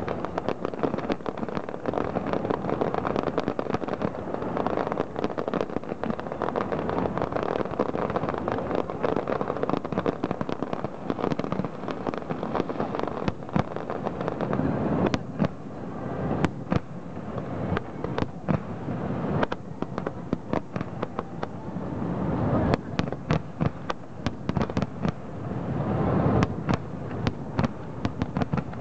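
Aerial fireworks bursting: a dense, continuous run of bangs and crackling that thins about halfway through into separate sharp pops and bangs.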